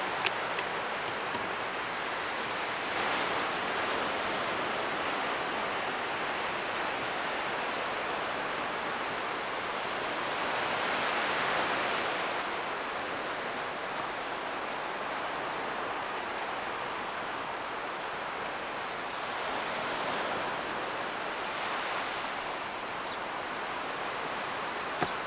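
Steady wash of sea surf that swells and eases every several seconds, with a single short knock near the end.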